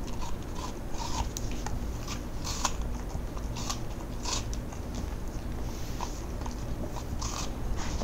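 A cocker spaniel biting and chewing a piece of raw apple, with crisp irregular crunches. They come thickest a few seconds in and grow sparser near the end.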